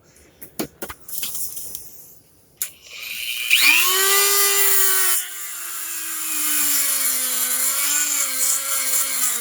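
A few handling clicks, then a Dremel rotary tool with a cutoff wheel starts and its high whine rises to speed about three and a half seconds in. Partway through, the pitch drops and keeps sagging and wavering as the wheel is held against the plastic body post, cutting it down.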